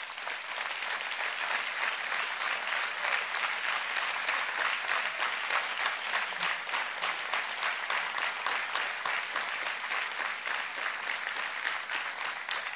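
Large audience applauding, swelling over the first couple of seconds and then holding steady.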